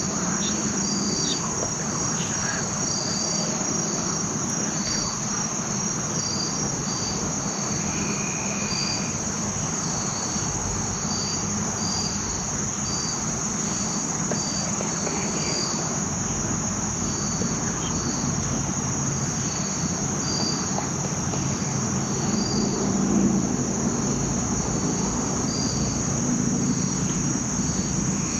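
Insects calling: a steady high-pitched drone with a short chirp repeating over it about once or twice a second.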